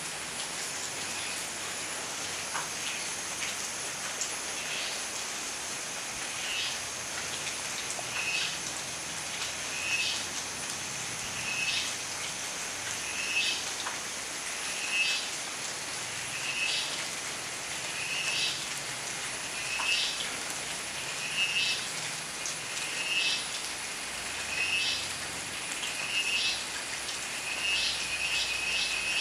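Steady rain falling with a constant hiss. From about five seconds in, a short high-pitched call repeats at an even pace, roughly every second and a half to two seconds, and breaks into a quick run of pulses near the end.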